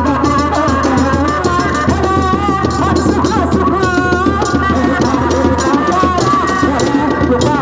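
Sundanese reak (kuda lumping) ensemble playing. Barrel-shaped hand drums are struck with bare hands in a fast, steady rhythm, under a wavering, sliding high melody.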